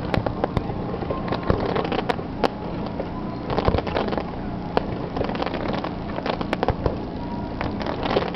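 Fireworks going off in quick succession during a display's finale: many sharp bangs and crackles over a continuous rumble, coming in denser clusters about two seconds in, near the middle and near the end.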